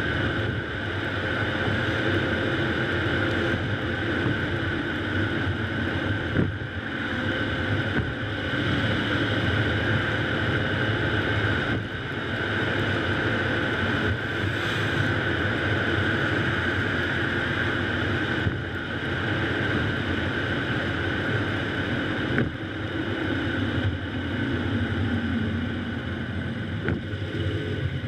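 Steady tyre and wind noise of a car driving along a street, picked up by a camera mounted low on the outside of the car. An oncoming truck passes about halfway through.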